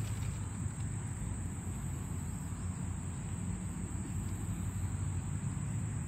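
Insects trilling steadily on one high pitch, over a low rumbling noise.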